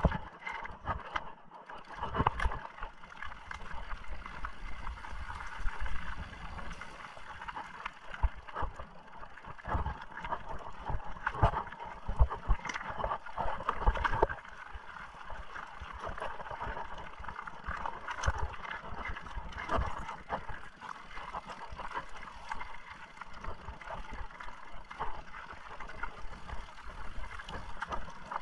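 Mountain bike riding over rough ground: a steady rolling noise with frequent knocks, rattles and low thumps from the bumps.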